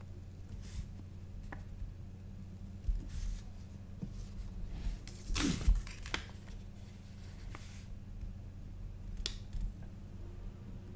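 Faint scattered clicks and taps from hand-soldering a small circuit board, the iron and board being handled, over a steady low electrical hum. The loudest sound is a brief rustle about five and a half seconds in.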